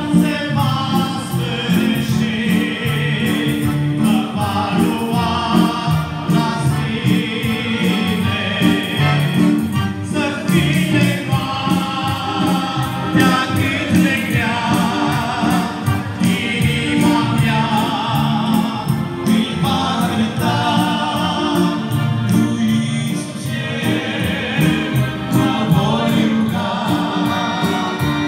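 A man singing a Romanian gospel song with accordion accompaniment, in continuous sung phrases.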